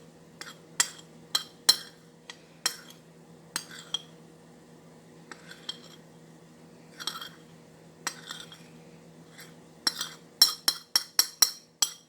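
A metal spoon clinking and tapping against a glass mason jar: scattered single clinks, then a quick, even run of about three or four clinks a second near the end.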